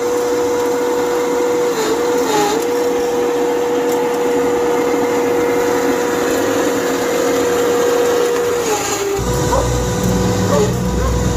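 Electric drive motors and gearboxes of a homemade radio-controlled multi-axle crane, whining steadily as it drives over grass. The whine dips briefly in pitch a few times, as the load changes, and a low rumble joins near the end.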